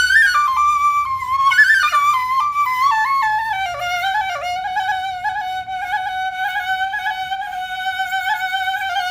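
Flute music: a single melody line that steps downward over the first few seconds, then holds a lower note decorated with quick trills.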